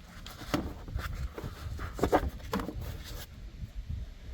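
A few light knocks and clatters as parts are handled in a truck's engine bay, with the plastic battery hold-down block being taken out.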